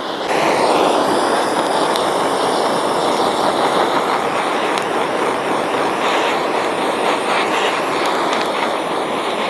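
Handheld gas blowtorch on a canister burning with a steady hiss as its flame singes the fine leftover hairs off a scalded, plucked chicken. The hiss swells up a fraction of a second in, then holds even.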